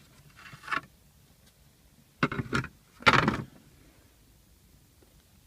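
Plastic console trim pieces being handled and scraped together, in three short bursts of scraping and rattling, the last two louder.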